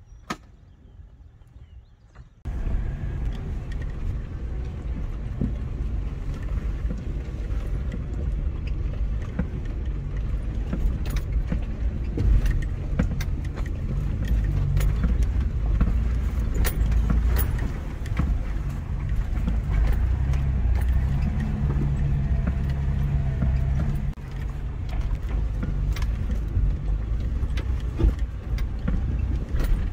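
Off-road 4x4 engine running steadily at low revs while crawling a rocky trail, with frequent sharp clicks and rattles from stones and loose gear. It comes in abruptly about two seconds in and dips briefly near the end.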